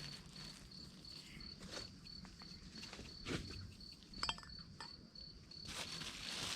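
Insect chirping in an even, high-pitched pulsing rhythm, with a few soft knocks and a brief clink about four seconds in.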